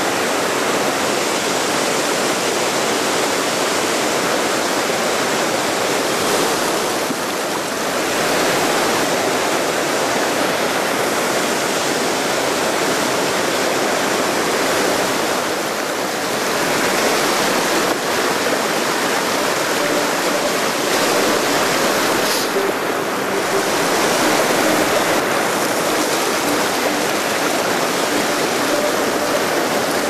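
Water rushing steadily down an icy waterfall, heard from its base.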